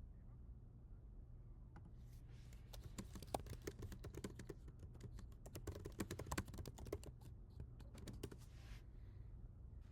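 Computer keyboard typing: a quick run of key clicks for about seven seconds, starting about two seconds in and stopping near the end.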